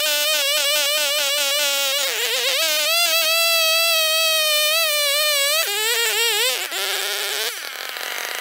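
Two-stroke chainsaw on a chainsaw mill, running at full throttle while ripping a chestnut log lengthways into slabs, with a tungsten-tipped chain. The engine note wavers with the load, then drops lower and a little quieter a bit past halfway.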